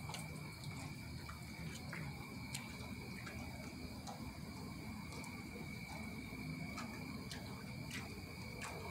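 Insects trilling steadily in a high, unbroken tone, with a few faint ticks scattered through.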